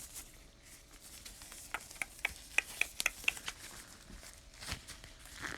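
Gloved hands fumbling with the plastic wrap of a sealed trading-card box: small crinkles and a quick run of about ten sharp plastic ticks in the middle.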